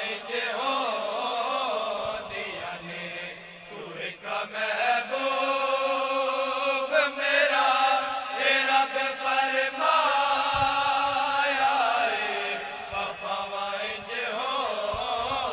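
A group of male voices chanting a sustained, wordless devotional vocal drone for a naat, with no clear words; the held notes waver melodically near the start and again near the end.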